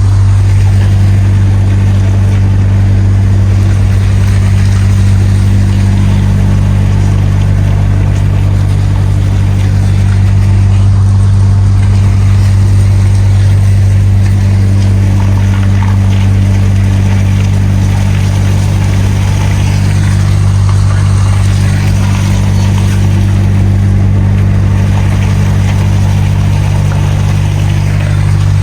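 DAF XF truck's diesel engine droning steadily while driving, with a faint rush of road noise.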